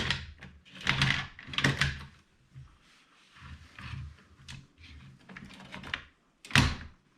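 Mag Pump 9mm magazine loader being worked to push rounds into a Girsan pistol magazine: a string of sharp clacks and clicks with rattling handling between them. The loudest clacks come at the start, about one and two seconds in, and near the end.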